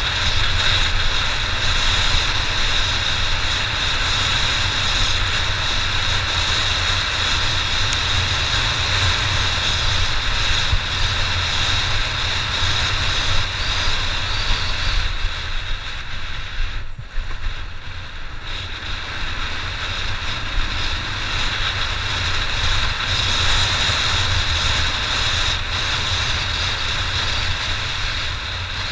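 Honda XR600 single-cylinder four-stroke dirt bike engine running under way, mixed with heavy wind noise on the microphone. The sound drops briefly about two-thirds of the way through, then picks up again.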